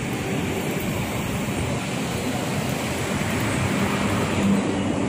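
Steady outdoor noise of road traffic, with wind rumbling on the phone's microphone.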